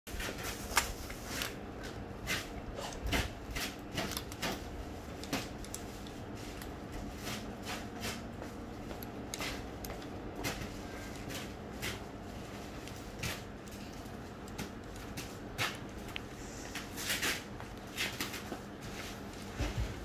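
Bubble wrap rustling and crinkling as the parts of a bicycle repair stand are unwrapped and handled, with irregular clicks and light knocks of the plastic and metal parts, over a steady low hum.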